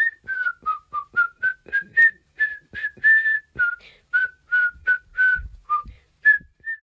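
A short, bouncy tune whistled in quick separate notes, about three a second, stepping up and down in pitch before it stops.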